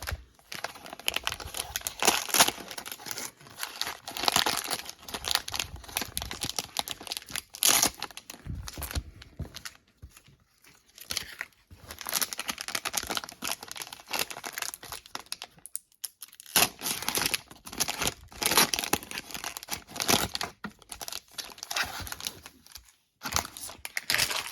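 Cellophane wrapper of a trading card pack crinkling and tearing as it is opened, in irregular bursts with a few short pauses.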